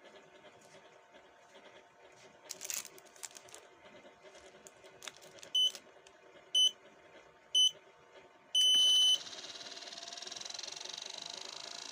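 Bodymax treadmill console beeping three times about a second apart, then one longer beep, the start countdown; the motor and belt then start running with a steady, slowly rising whine.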